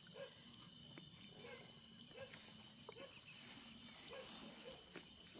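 Near silence: faint outdoor ambience of short calls from a small animal, repeating every half second or so, over a steady high hum, with a few soft clicks.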